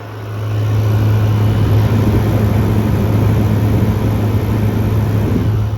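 Frigidaire FFRA052WA1 window air conditioner running, heard at its outdoor end: a steady, loud compressor hum with the rushing of the condenser fan. It swells up about a second in and drops away near the end.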